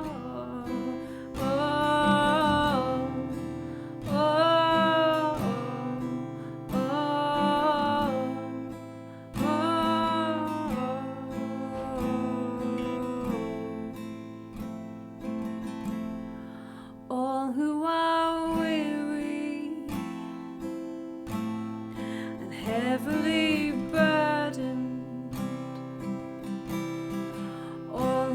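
A worship song: strummed acoustic guitar under a woman's voice singing long held notes in phrases a few seconds long, with short gaps between them.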